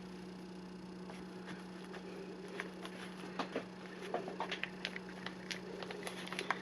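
Faint handling of paper while a pocket is glued down onto a journal page: scattered light taps, clicks and scrapes that start about two and a half seconds in, over a steady low hum.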